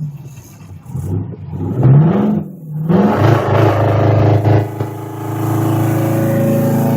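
Straight-piped two-stroke 8V71 Detroit Diesel in a 1980 GMC General semi truck, revved in several quick blips that rise and fall in pitch, then held at a steady note from about five seconds in.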